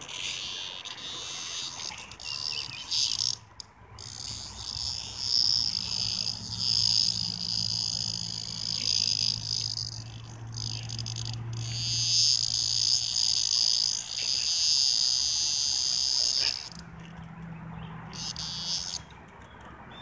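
Cicada giving a loud, high buzz in long bursts that cut off and restart abruptly, the protest buzz of a cicada caught and played with by a puppy.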